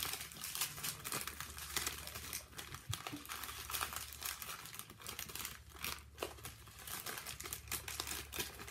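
Small plastic bags of diamond-painting drills crinkling and rustling against the canvas's clear plastic film as they are handled, in irregular crackles throughout, over a faint steady low hum.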